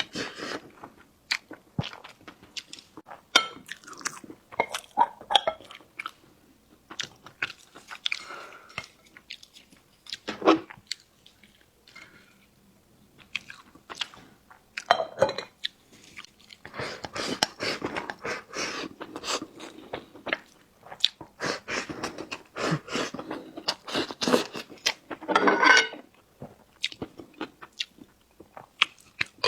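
Close-miked eating sounds of a person chewing and biting food: wet mouth clicks and smacks in irregular bursts, with a short pause near the middle.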